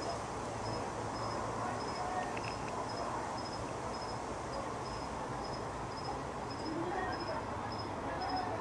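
A cricket chirping steadily, about two short high chirps a second, over a constant low background rumble.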